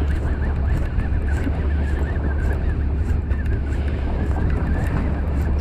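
Steady low rumble of wind and boat noise on open water, with a faint high warbling sound running through it.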